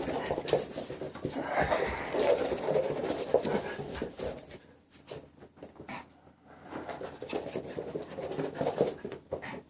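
Maltese dog panting after exercise, with scattered light clicks. The panting eases off about halfway through, then picks up again before cutting off abruptly.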